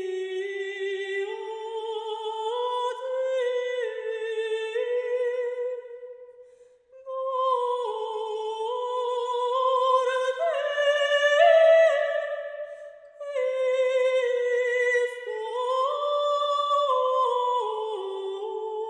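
Armenian sacred hymn sung by a chamber choir: slow, sustained, high-pitched melodic lines moving stepwise, with brief breaks between phrases about six and a half and thirteen seconds in.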